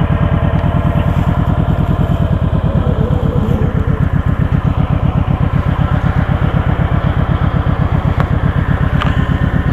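Kawasaki Vulcan 1700 Voyager's V-twin engine running steadily just after starting, with an even, rapid exhaust pulse.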